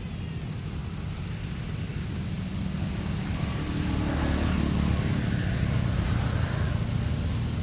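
Low, steady rumble of a motor vehicle engine, growing louder about three seconds in and staying loud.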